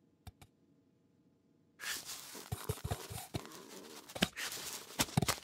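Cartoon sound effects of a cat clawing and rummaging into a toppled Santa figure. Two small clicks come near the start, then from about two seconds in there is a busy run of scraping, rustling and sharp knocks.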